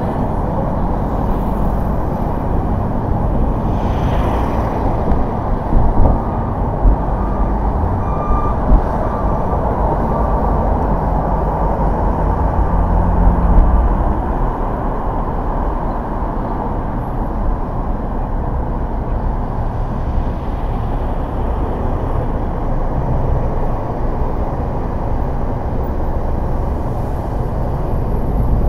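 Car on the road: steady tyre and engine noise, with several brief knocks between about six and nine seconds in.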